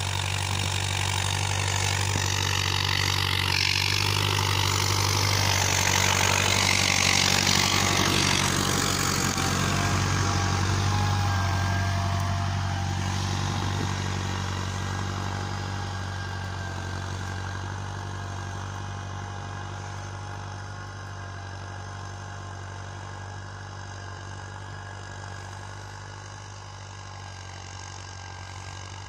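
Steyr 8073 tractor's diesel engine running steadily under load while pulling a two-bottom plough through the soil. It is loudest in the first half and fades over the last half as the tractor works away.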